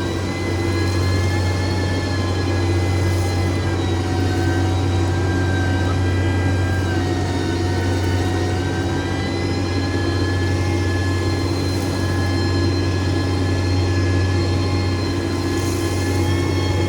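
Heavy road-construction machine's engine running steadily: a deep, even drone with a thin, high whine over it.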